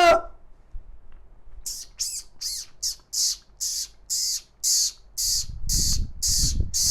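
A man imitating a bird call with his mouth: a rapid run of short, breathy, hissing calls, about three a second, starting about two seconds in. A low rumbling noise joins underneath from about five seconds in.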